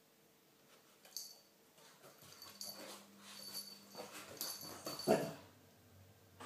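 Shih Tzu puppy making small dog noises as it wrestles a lemon: a stop-start run of short sounds from about a second in, loudest about five seconds in.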